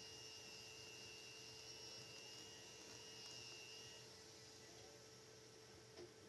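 Near silence: faint room tone with a steady low hum and a thin high whine that stops about two-thirds of the way through.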